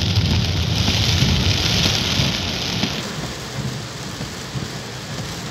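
Torrential rain hissing as a dense, steady noise, with a low rumble underneath during the first half. The sound drops abruptly about three seconds in and stays quieter afterwards.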